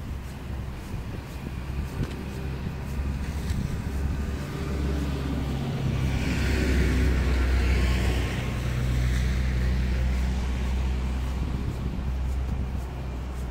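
A car driving past on a snowy city street, its engine hum and tyre noise swelling to a peak about halfway through and then easing off, over a steady low rumble of traffic.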